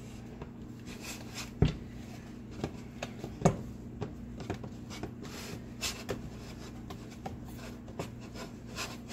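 Wooden spoon beating and stirring thick genfo dough made of besso and bula in a nonstick saucepan: irregular scraping and rubbing strokes with knocks of the spoon against the pan, two louder knocks about one and a half and three and a half seconds in. A steady low hum runs underneath.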